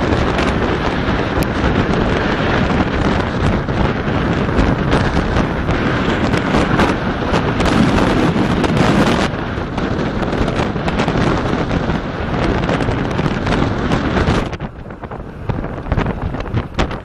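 Storm wind buffeting the microphone, a dense loud rush that falls away suddenly near the end, with scattered sharp knocks through it.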